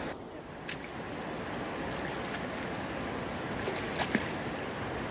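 Steady rush of a shallow, clear river running over stones, with a few brief sharp clicks about a second in and twice close together about four seconds in.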